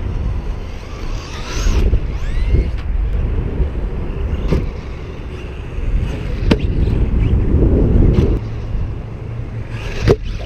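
Arrma Big Rock 3S BLX RC monster truck running, its brushless motor whining up under acceleration near the start over a constant low rumble, with a few sharp knocks as the truck hits the ground.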